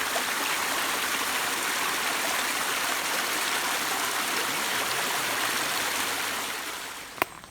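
Small mountain stream running over rocks: a steady rush of water that swells in at the start and fades out near the end. There is a single sharp click just before the end.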